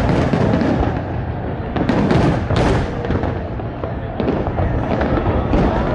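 Fireworks going off: a string of sharp bangs, the strongest right at the start and about two and two and a half seconds in, over a continuous din of crackling.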